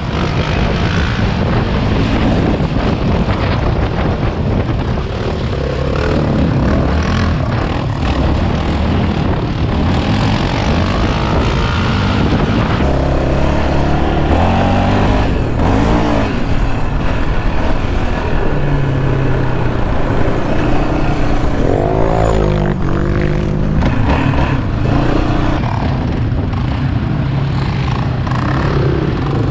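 ATV engine running hard under the rider, its revs rising and falling as it is throttled and shifted along a dirt trail, with wind rushing over the camera microphone.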